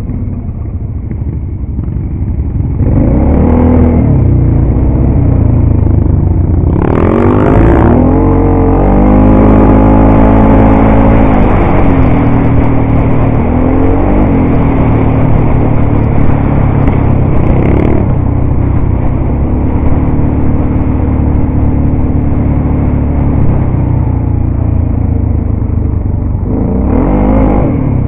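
ATV engine running under way, its pitch climbing as it revs up about three seconds in and again around seven seconds, holding fairly steady at cruising speed through the middle, and rising once more near the end.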